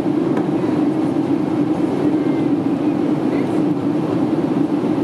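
Steady cabin drone of a Boeing 767 in flight: jet engine and airflow noise heard from inside the passenger cabin, an even low hum that does not change.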